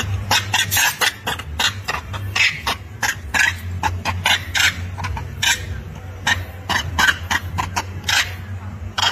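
Macaques giving a rapid, irregular string of short shrill squeaks over a steady low hum.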